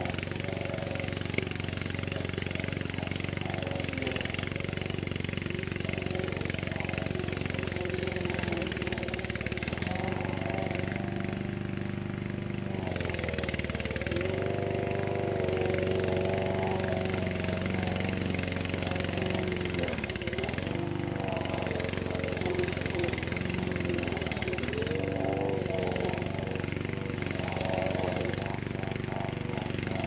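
Vigorun remote-control tracked mower's petrol engine running steadily as it mows long grass. Its pitch dips and recovers several times.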